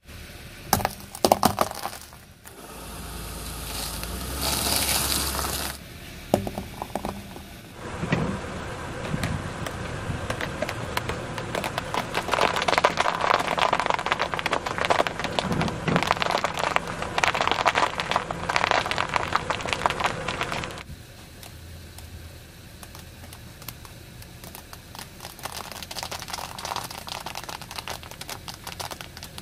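A car tyre rolling slowly over objects and crushing them. There are a few sharp cracks near the start as it meets hard red lollipops. Then comes a long run of dense snapping and crackling as dry spaghetti strands break under the tyre, thinning to lighter crackles for the last several seconds.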